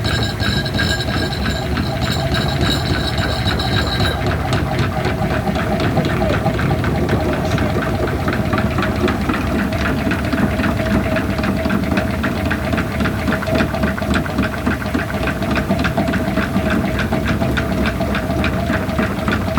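45-degree bevel gears driven by a water turbine, running at about 500 RPM: a steady, rapid clatter of meshing teeth over a constant hum. A higher whine cuts out about four seconds in.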